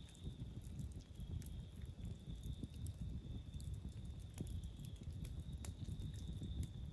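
Wood campfire burning, crackling with scattered sharp pops over a low rumble.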